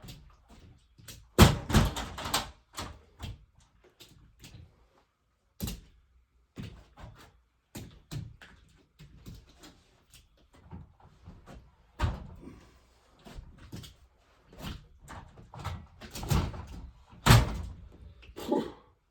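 Irregular knocks and thumps of varying strength, the heaviest about a second and a half in and again near the end.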